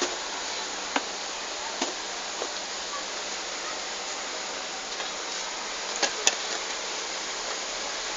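A few sharp plastic clicks and knocks as a child handles plastic jars and their lids, the sharpest pair a little after six seconds, over a steady hiss of background noise.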